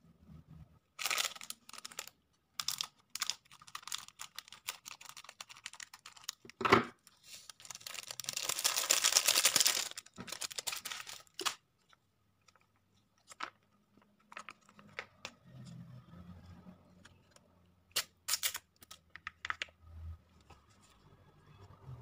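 Foil seasoning sachets from an instant noodle pack crinkling as they are handled and torn open, with a longer tearing sound about eight seconds in and scattered clicks and knocks. Quieter crinkling follows as the sachets are squeezed out over the bowl.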